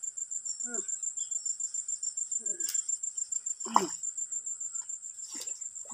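An insect, cricket- or cicada-like, trilling steadily in a very high pitch with rapid pulses. A few brief, faint bits of voice come through.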